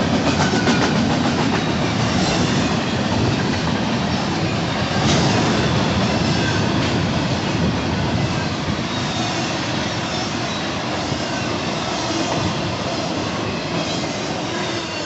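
Intermodal freight train cars rolling past, a steady rumble and clatter of steel wheels on the rails that eases slightly near the end.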